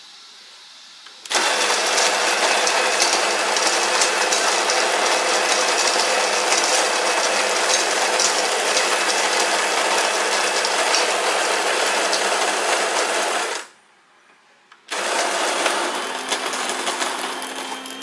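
The SMEG EGF03's built-in coffee grinder grinding espresso beans into a metal dosing cup. It runs steadily for about twelve seconds, stops briefly, then starts again for a few more seconds, getting quieter near the end.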